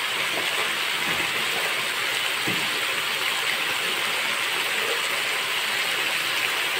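Chicken pieces frying in oil and masala in a steel kadai, a steady sizzle.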